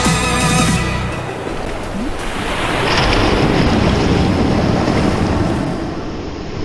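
Sea waves washing in: a steady rush of surf that swells about three seconds in and eases off near the end. Music dies away in the first second.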